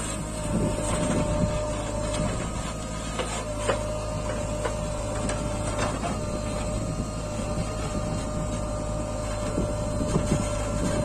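JCB backhoe loader's diesel engine running under load with a steady hydraulic whine as the backhoe arm swings, digs and lifts. A few knocks come in the middle as the bucket works the soil.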